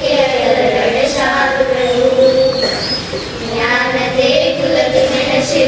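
Children singing a prayer song, holding long, drawn-out notes.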